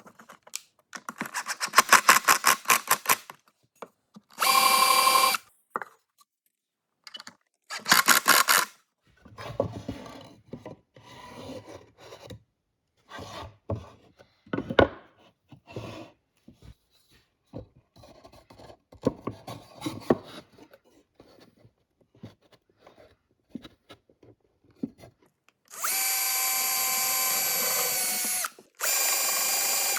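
A power drill runs in short bursts, a steady motor whine starting and stopping several times, typical of driving screws into a wooden drawer. Scattered knocks and clatter of wood being handled fill the middle stretch, and two longer drill runs come near the end.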